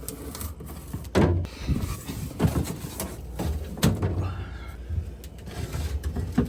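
Food containers and packages being taken out of a refrigerator and set down: a series of knocks and clunks, about one a second, with rustling between.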